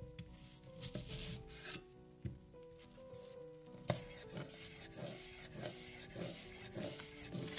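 Food being grated by hand on a grater: repeated rasping strokes, settling into a regular rhythm of about two strokes a second in the second half, over soft background music.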